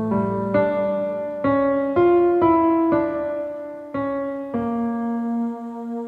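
Slow, calm relaxation music on a piano-like keyboard: single notes and chords struck about every half second to a second and left to ring and fade.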